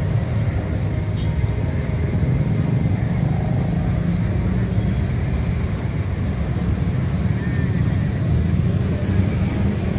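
Steady rumble of dense road traffic: many motorbike and scooter engines together with some cars.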